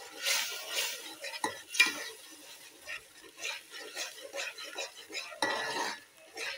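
A spoon stirring and scraping thick masala paste as it fries in a metal pot, with irregular knocks of the spoon against the pot. The loudest knock comes about two seconds in, and a longer run of scraping comes near the end.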